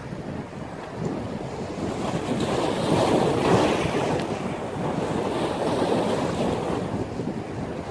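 Ocean surf breaking and rushing in strong wind, with gusts buffeting the microphone. The rush swells to its loudest about three seconds in, then eases off.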